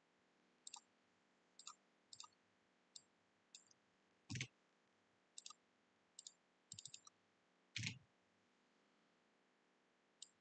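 Faint, scattered clicks of a computer mouse and keyboard, some in quick pairs, with a quick run of clicks about seven seconds in. The two loudest clicks come about four and eight seconds in.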